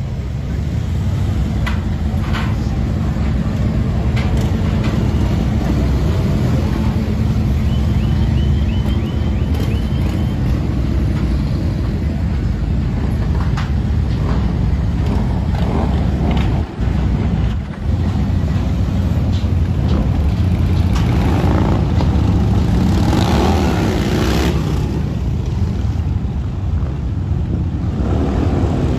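Many motorcycle engines running and riding past together in a steady deep rumble, swelling louder about three-quarters of the way through as bikes pass close by.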